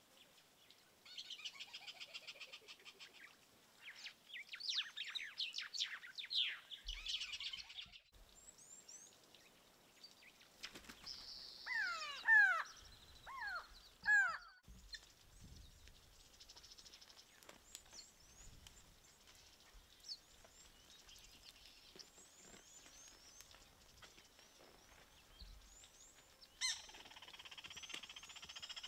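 Wild birds calling and chirping: rapid trills and quick sliding whistles, with a louder run of down-sliding calls about halfway through and a denser chorus of chirping near the end.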